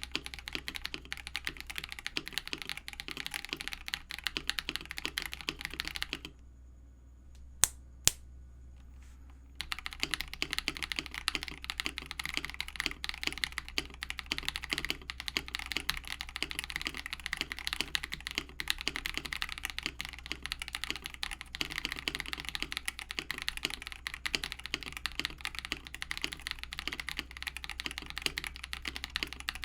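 Continuous fast typing on a mechanical keyboard, a rapid clatter of keystrokes. About six seconds in it drops out for roughly three seconds, with two sharp clicks in the gap, then resumes.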